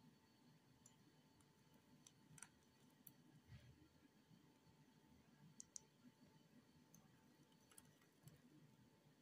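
Near silence: quiet room tone with a few faint, scattered clicks.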